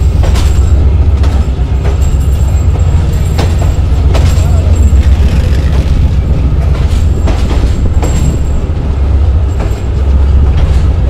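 Passenger train carriage rolling along the platform as it pulls into a station, heard from the moving carriage: a loud, steady low rumble with irregular clacks of the wheels over rail joints.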